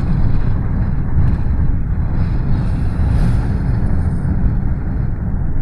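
Strong hurricane wind blowing: a dense low rumble, with gusts swelling and easing in the hiss above it.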